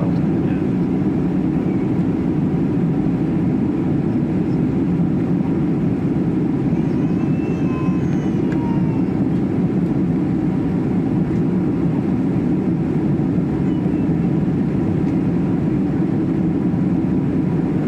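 Steady cabin roar inside a Boeing 767 airliner in flight, the engines and airflow making an even low rumble with no change in level.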